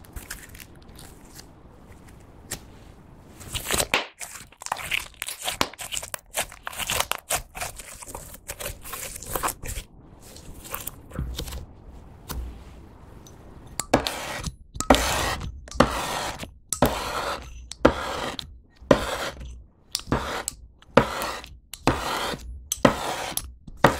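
Pink slime being stretched and squished by hand, with sticky crackling and popping. About halfway through, a knife starts scoring lines into a flattened disc of it, at about one stroke a second.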